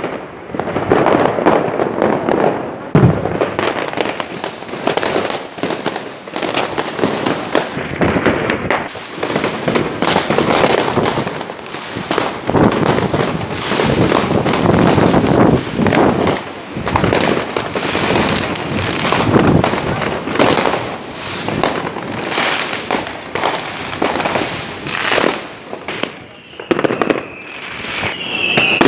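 Fireworks going off in a dense, continuous barrage of bangs and crackling, with a brief high-pitched tone near the end.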